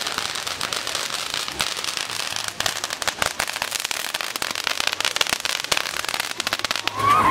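Firecrackers going off in a rapid, uneven crackle of many sharp pops.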